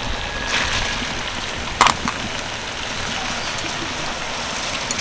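Soaked rice tipped and scraped from a steel bowl into a hot kadai of chicken curry, over a steady sizzling hiss from the pan. A single sharp knock sounds about two seconds in.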